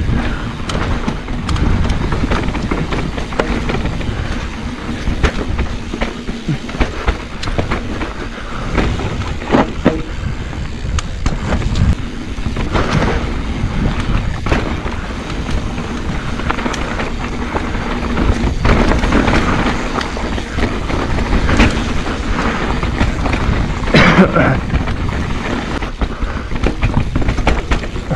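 Mountain bike descending a rough dirt singletrack: steady rolling rumble from the tyres with frequent clatters and clunks from the bike over bumps, loudest about 24 seconds in.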